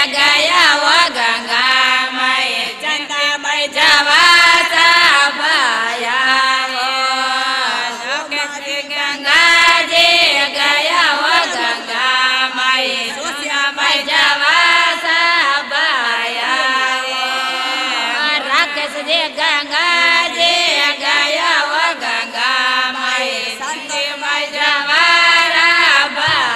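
Women's devotional group (mahila mandal) singing a Rajasthani Marwari folk song to Ganga Maiya, a chant-like melody sung without pause.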